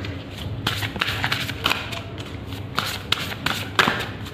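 A deck of angel oracle cards being shuffled by hand, with an irregular run of soft flicks and slaps of card against card.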